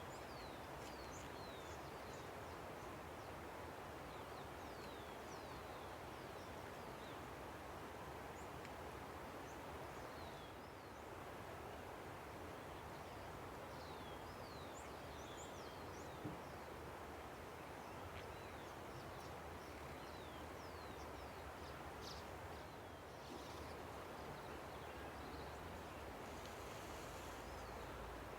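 A river rushing steadily, with many small birds calling over it in short, high chirps that slide downward in pitch.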